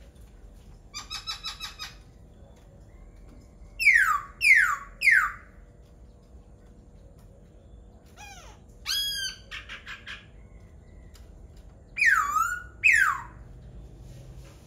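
A laughingthrush singing in separate phrases with pauses between them. First a quick run of short notes, then three loud falling whistles, then a more complex warbled phrase ending in a fast trill, and near the end two more loud falling whistles.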